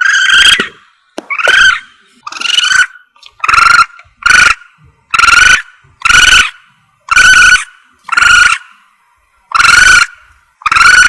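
Musang (civet) hunting lure call: a loud squealing animal call, each about half a second long, repeated about once a second, often in pairs.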